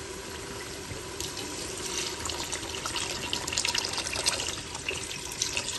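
Water poured from a jug into a pressure cooker, splashing onto the mutton and oil; the pour starts about a second in and runs on steadily.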